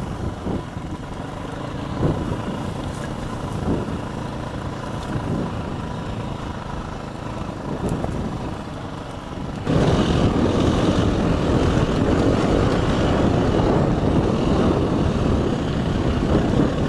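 Dirt bike engine running as it rides a rough grassy trail, with a few knocks from the terrain. About ten seconds in the sound turns suddenly much louder and rougher as the bike picks up speed on open dirt road.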